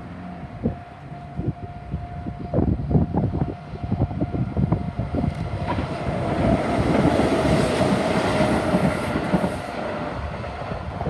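Sanyo Electric Railway 3000 series train passing a level crossing, its wheels clacking over the rail joints from about two and a half seconds in and building to a loud rumble through the middle, easing near the end. A steady crossing bell tone sounds at the start.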